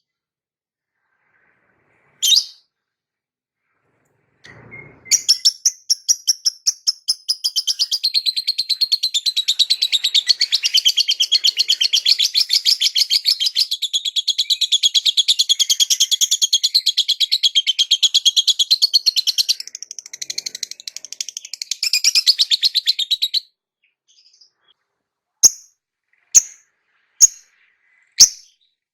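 Lovebird chirping: a single sharp chirp, then a long, rapid, unbroken run of high chirps lasting about eighteen seconds, then four single chirps about a second apart near the end.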